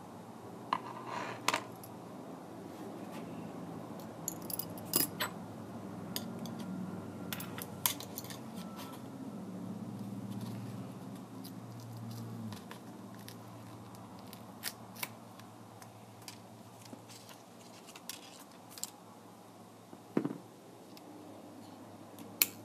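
Irregular small clicks and light metallic taps of tools, screws and small parts being handled and set down on a work surface while a tablet is taken apart, over a steady low hum.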